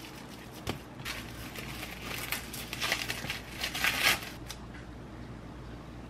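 Plastic wrap (cling film) crinkling and crackling as it is peeled open from a slab of chilled scone dough, in irregular rustles that are loudest about four seconds in, after a single tap near the start.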